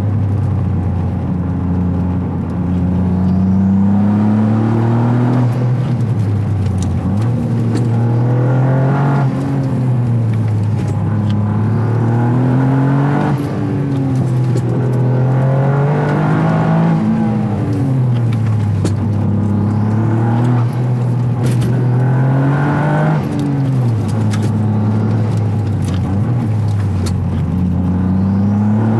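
Toyota GR Yaris's turbocharged 1.6-litre three-cylinder engine heard through an aftermarket intake airbox, its revs climbing and dropping back again and again as the car accelerates through the gears and lifts off. There is a hiss of intake air as the throttle closes, which the tuner attributes to the blow-off valve opening.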